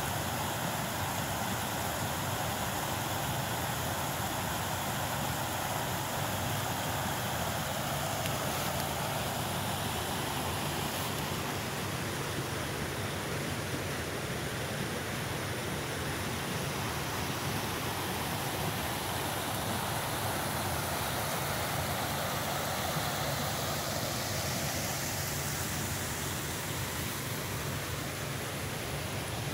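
Creek water rushing over rocky riffles: a steady, unbroken rush of running water.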